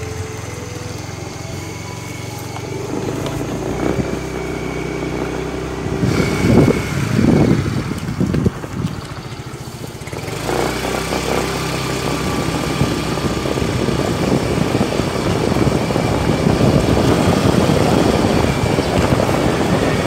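Motorcycle engine running steadily while riding, with a rushing noise of wind and road that grows louder in the second half.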